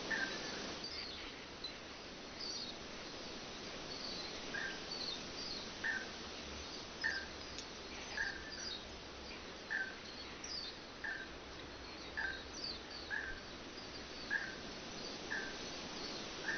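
Birds singing: one repeats a short call about once a second while others give quick, high, falling chirps, over a steady rush of falling water.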